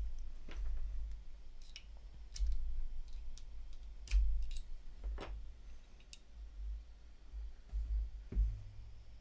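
Small metal and plastic parts of a paintball marker's bolt assembly clicking and tapping as they are handled and pulled apart, irregular sharp clicks with low handling bumps, the loudest about four and five seconds in.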